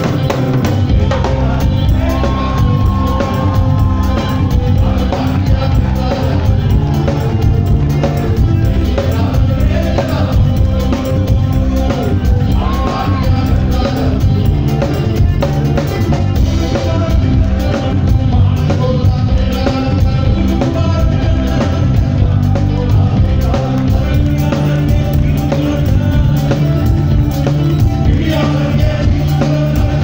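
Live rock band playing through a PA: drum kit, electric guitars and bass, with a singing voice over the top.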